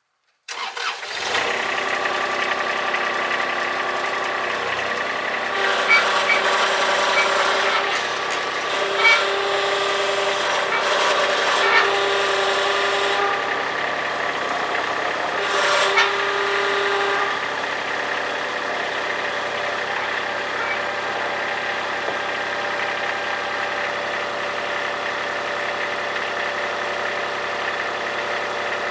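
Kubota D1105 three-cylinder diesel engine of a Madvac ride-on vacuum cutting in abruptly about half a second in and running steadily. It is louder and noisier, with a few sharp ticks, between about 6 and 17 seconds in, then settles to a steadier run.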